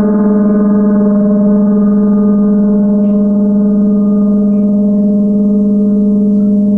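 Gong in a sound bath held in a steady, sustained hum: one strong low tone with a stack of fainter overtones above it, slightly wavering but not dying away.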